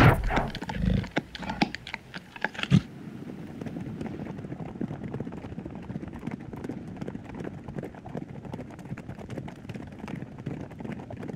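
A few loud low sounds in the first three seconds, then the steady clatter of many hooves as a wildebeest herd moves over dry ground.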